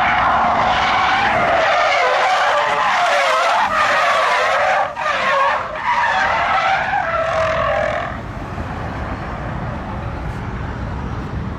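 Car tyres squealing in a long, wavering screech during a drift, with brief breaks about five seconds in. The screech stops about eight seconds in, leaving quieter engine and background noise.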